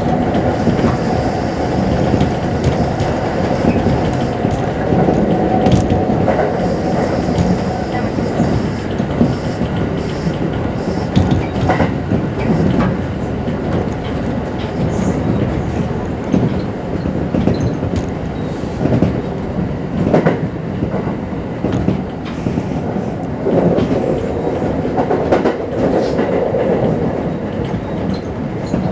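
Kintetsu Series 21 electric train heard from inside the car while running at speed: a steady rumble of wheels on rail with scattered sharp clicks from the track. A steady tone ends about eight seconds in.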